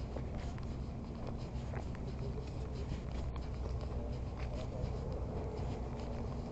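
Footsteps through dry grass and fallen leaves, with many small scratching and crackling sounds over a steady low rumble.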